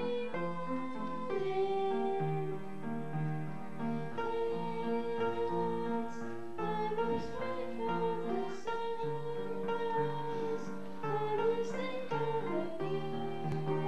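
Slow instrumental ballad with long held melody notes over a stepping bass line, played through a hall's sound system.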